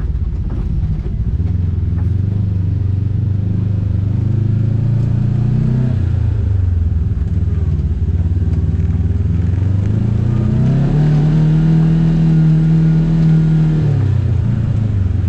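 Side-by-side UTV engine running under throttle, heard from inside the cab. It revs up and drops back around six seconds in, then climbs to a higher held pitch from about ten to fourteen seconds before easing off.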